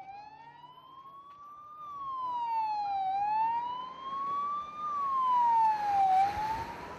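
Fire engine siren wailing, slowly rising and falling in pitch with about three seconds to each rise and fall, growing louder over the first several seconds. Near the end there is a rush of vehicle noise as it passes.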